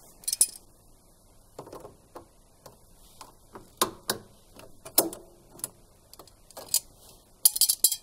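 Pliers clicking and clinking against a wire spring hose clip as it is squeezed open on a rubber sump hose. The sharp metallic clicks are scattered, with several in quick succession near the end.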